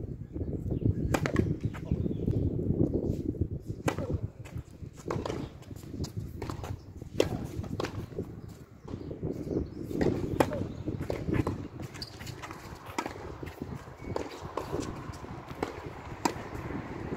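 Tennis rally: sharp pops of a tennis ball struck by rackets and bouncing on the court, spaced irregularly a second or more apart, over a steady low rumble of wind on the microphone.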